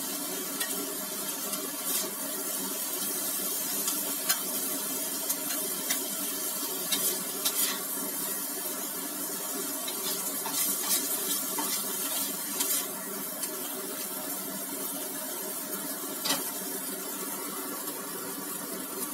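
Tofu and vegetable stir-fry sizzling steadily in a wok, with a metal spatula clicking and scraping against the pan now and then.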